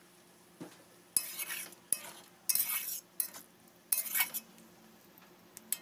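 Spatula stirring fish and eggplant curry in an aluminium kadai, scraping against the pan in about five short strokes.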